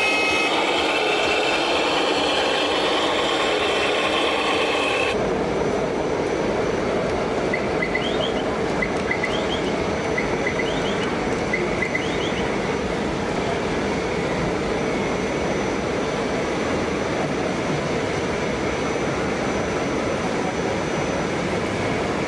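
Steady noisy din of RC model trucks running on an indoor fair course, with the sound changing abruptly about five seconds in. A few seconds later come four short high chirps, about a second apart.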